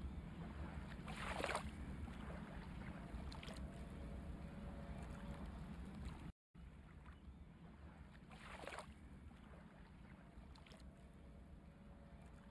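Faint paintbrush strokes on paper: two soft swishes, about one and a half seconds and eight and a half seconds in, over a low steady hum. The sound cuts out completely for a moment midway.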